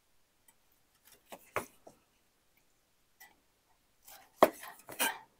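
Large knife slicing through a rack of smoked pork ribs and knocking on a wooden cutting board: a few soft clicks, then a louder cluster of sharp knocks near the end.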